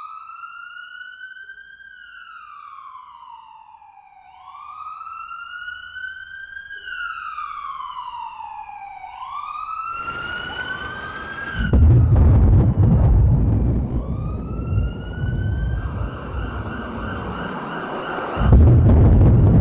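A siren wailing, its pitch climbing and then falling slowly, one cycle about every four to five seconds. About ten seconds in a noisy wash joins it. From about twelve seconds a loud low rumble takes over as the loudest sound, while the siren carries on above it.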